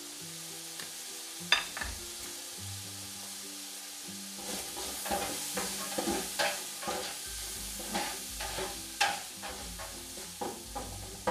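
Diced pancetta sizzling in a frying pan as it is sautéed with black pepper and stirred with a utensil. A sharp clack comes about a second and a half in, and from about halfway the utensil scrapes and knocks against the pan in quick repeated strokes.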